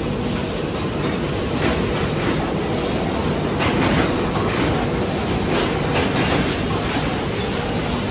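Cornetto ice cream cone filling machine running: a steady mechanical clatter with sharp clicks every second or two.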